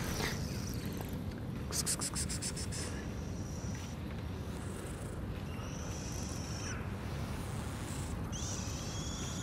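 Outdoor background with a steady low rumble, a quick high rattling trill about two seconds in, and high thin chirping calls of small birds around the middle and near the end.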